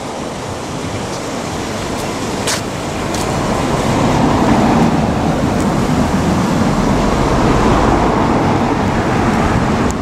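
Road traffic: a steady rush of passing vehicles that grows louder about four seconds in, with a low rumble in the second half.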